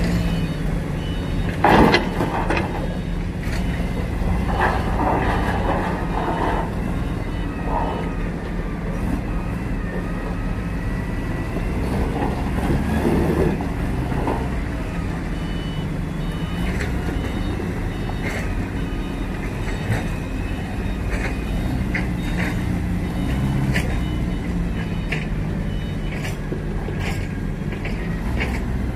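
Forklift engine running steadily while it moves a large steel plate on its forks, with a loud bang about two seconds in and scattered sharp knocks later. A reversing beeper sounds at times.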